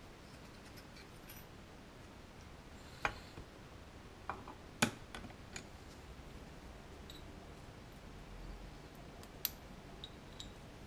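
Scattered light metallic clicks and taps as small Honda Cub engine parts and pliers are handled at the bare aluminium crankcase half, the sharpest about five seconds in.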